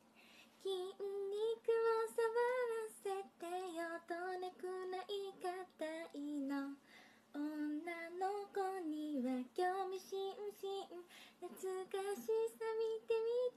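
A woman's solo singing voice carrying a melody in sustained, wavering notes, with short breaks between phrases.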